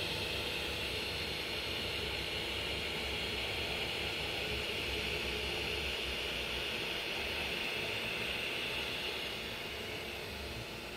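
Ender 3-S1 Pro 3D printer running as it prints its first layers: a steady whirring hiss, easing slightly near the end.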